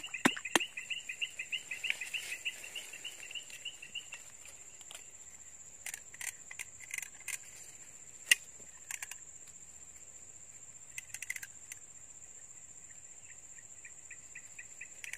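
Outdoor insect chorus: a steady high-pitched insect trill, with a fast run of chirps that fades out about four seconds in and comes back near the end. A few sharp clicks sound near the start and once in the middle.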